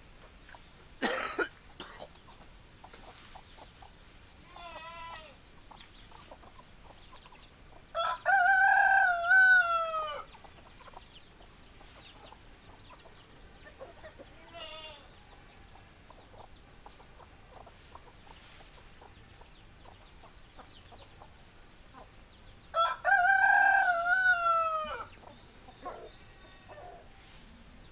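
A rooster crowing twice, each crow about two seconds long and falling away at the end, the two crows some fifteen seconds apart. Fainter, shorter calls come in between, and there is a brief sharp noise about a second in.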